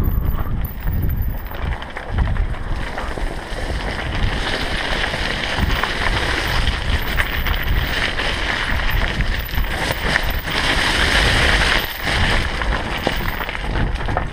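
Mountain bike riding fast down a rocky trail: tyres rumbling and rattling over stones, with wind noise on the microphone. From about four seconds in until near the end, a louder gritty hiss as the tyres run over loose gravel.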